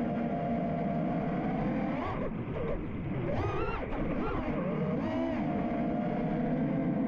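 FPV freestyle quadcopter's Ethix Stout 2306 brushless motors whining in flight. The pitch holds steady, then swoops up and down several times in the middle with quick throttle changes, then settles again.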